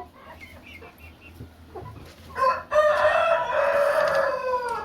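A rooster crows once: a long, drawn-out crow that starts about halfway through and trails off at the end. Soft hen clucking comes before it.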